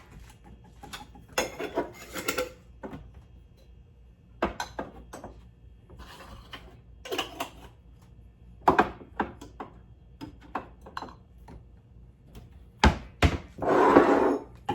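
Kitchen handling sounds: containers and utensils picked up, rubbed and set down on a counter, with scattered knocks and rustles. Near the end come two sharp knocks and then a brief burst of noise lasting about a second.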